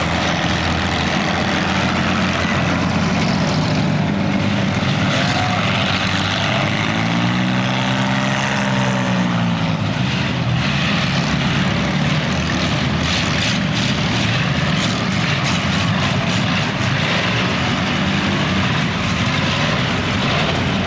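Loud engines of demolition derby cars running hard in a chain race, a steady mass of engine noise. About eight seconds in, one engine's pitch rises and falls as it passes close by.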